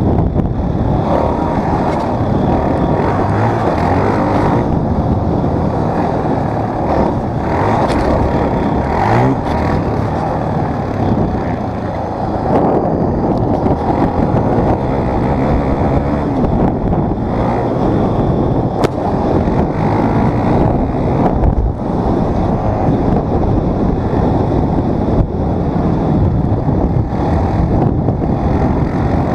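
Dirt bike engine running under way, its pitch rising and falling with the throttle, heard loud and steady throughout.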